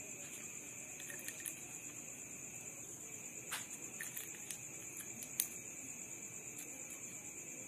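Steady high-pitched trilling of night insects such as crickets, at two steady pitches, with a few small sharp clicks scattered through, the loudest about five seconds in.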